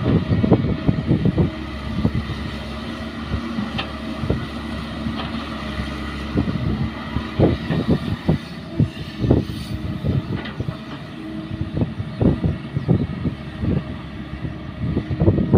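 Caterpillar hydraulic excavator's diesel engine running with a steady hum under working load as the machine swings, dumps a bucket of earth into a dump truck and digs again. Frequent short low thumps and rumbles, heaviest near the start and in the second half, with a single sharp clank about four seconds in.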